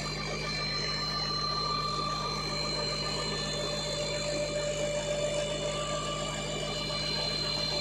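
A tractor's diesel engine runs steadily under load, driving a PTO-powered centrifugal water pump through its shaft and gearbox. A fast, even low throb carries a few steady higher tones.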